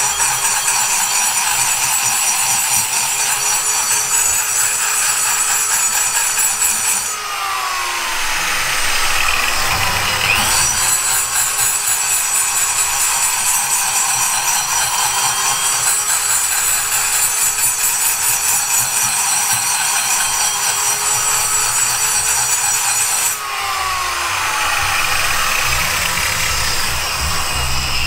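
High-speed die grinder grinding metal while porting a cylinder head, a steady high whine and rasp. Twice it winds down in pitch and then spins back up to full speed.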